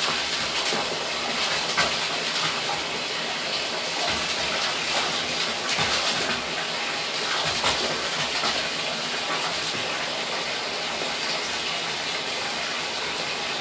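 Bathtub faucet running into a partly filled tub: a steady rush of falling water, with a few brief louder splashes as a kitten's paw swipes through the stream.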